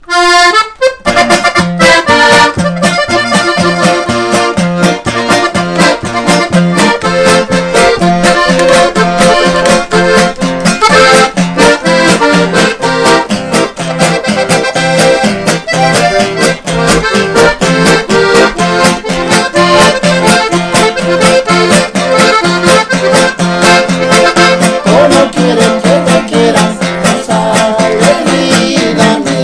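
Piano accordion and acoustic guitar playing an instrumental ranchera, the guitar strummed in a steady rhythm under the accordion's melody.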